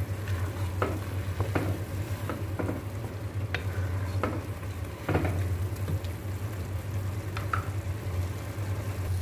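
Wooden spatula stirring rice and chopped tomato in a nonstick pan, with scattered scrapes and taps against the pan, over the steady sizzle of the rice simmering in its liquid. A low steady hum runs underneath.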